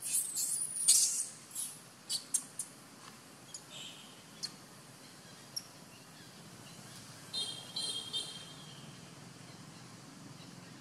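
Short, high-pitched animal chirps and squeaks. There is a quick cluster at the start, loudest about a second in, then scattered single chirps and a short run of chirps near the end.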